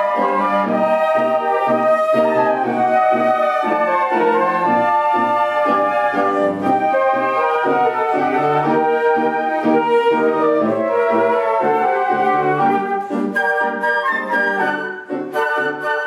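Flute ensemble playing a tango: held melody lines over a pulsing low accompaniment of about two beats a second, breaking into short detached chords near the end.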